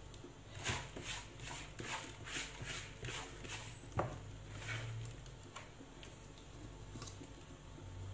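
Hands rustling through and separating strands of fresh, oiled rechta noodles in an aluminium pot: a quick run of soft swishes over the first few seconds, then fewer. A single sharp knock about four seconds in.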